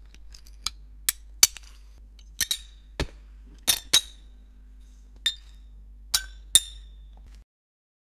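Stable Audio AI-generated sound effect of a beer bottle being opened: about a dozen sharp glass-and-metal clinks, irregularly spaced, several ringing briefly, over a low steady hum. It cuts off abruptly near the end.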